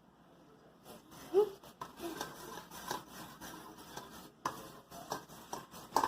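Irregular scraping and tapping of a utensil in a bowl as glue and paint are mixed for slime, starting about a second in, with one short squeak early in the mixing.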